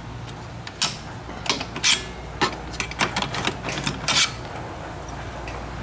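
Screwdriver clinking and scraping against the steel rear drum-brake shoes and backing plate as the shoes are pried apart: a string of irregular metallic clicks and short scrapes, the loudest about two seconds in and a longer scrape about four seconds in.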